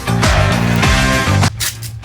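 Loud background music with a steady beat; it drops sharply in level about one and a half seconds in.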